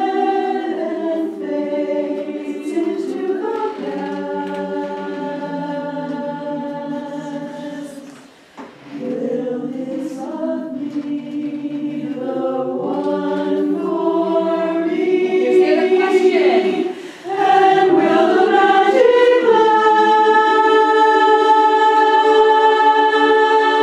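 Women's barbershop chorus singing a cappella in close harmony, moving through sustained chords. The singing breaks off briefly about eight seconds in and again around seventeen seconds, then settles into one long held chord.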